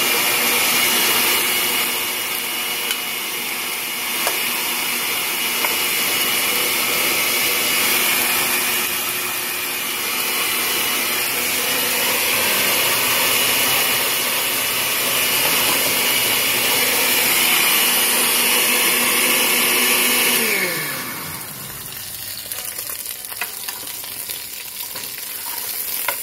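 An electric motor appliance runs with a steady hum and whine, then is switched off about 20 seconds in and winds down with falling pitch. After that, chicken pieces sizzle and crackle as they fry in oil in a pan.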